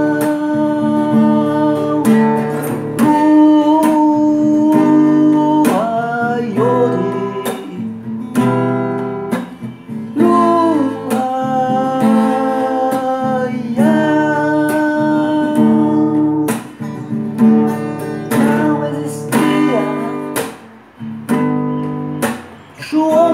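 Acoustic guitar strummed in slow chords, with a voice singing long held notes that slide between pitches.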